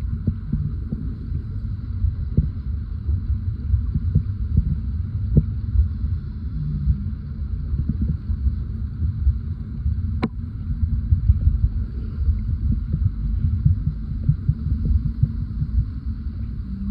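Seawater heard through an underwater microphone: a continuous low rumble of moving water, full of irregular soft knocks and thumps, with one sharp click about ten seconds in.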